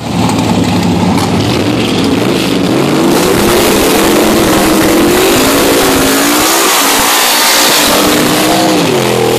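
Stick-shift Ford Mustang drag car's engine revving hard during a burnout, its pitch rising and falling again and again as the rear tyres spin.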